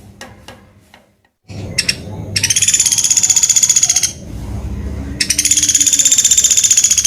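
Pelatuk beras, a small woodpecker, calling two long, rapid, high trills of about a second and a half each, with a short pause between them, over a low background rumble.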